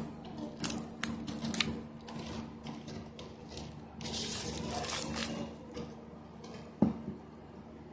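Thin plastic wrapping crinkling and rustling as a small Bluetooth speaker is slid out of its protective sleeve: a run of sharp crinkles at first, a longer rustle in the middle, and one loud thump near the end. A steady low hum sits underneath.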